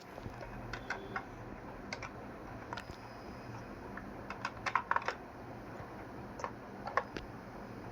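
Small toy kitchen pieces being handled, giving irregular light clicks and taps, with a quick cluster of clicks about five seconds in.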